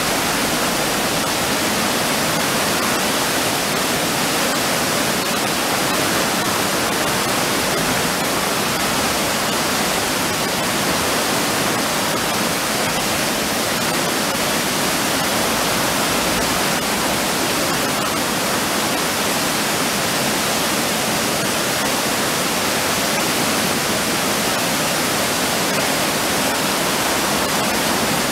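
River water pouring over a low weir: a steady, loud rush of whitewater that never lets up.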